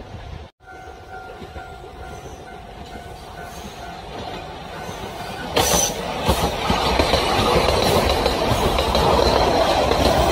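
Kintetsu electric train approaching and passing, its wheels clattering over the rail joints. The rumble builds, then jumps sharply about halfway through as the cars come by close.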